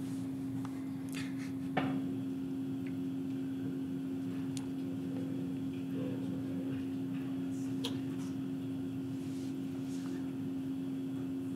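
Steady electrical hum of room tone, with a few faint clicks and knocks as a laptop at the lectern is operated, the clearest about two seconds in.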